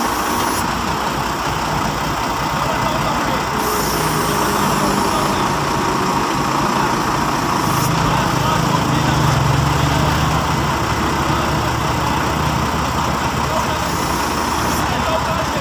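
Recovery truck's engine running steadily while its crane is worked from the side controls to hold and lift a vehicle; the engine note strengthens about eight seconds in.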